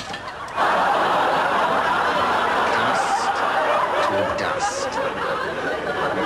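Studio audience laughing, breaking out suddenly about half a second in and slowly dying away.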